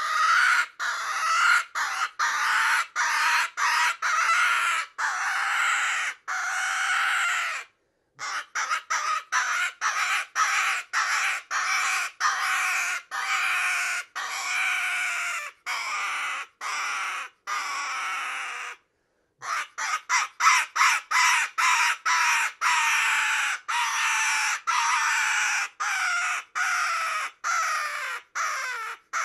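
Wooden cottontail rabbit distress hand call with a medium reed, blown in rapid squealing cries, about three a second, imitating a cottontail in distress to draw in predators. The cries come in three long series with short pauses between, and near the end the pitch slides lower.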